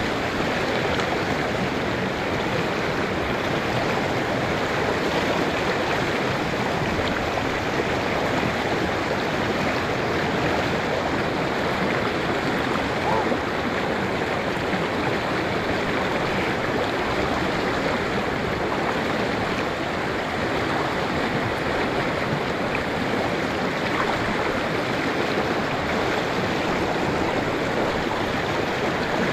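Shallow river rapids rushing steadily over rocks, with the white water churning right beside the microphone.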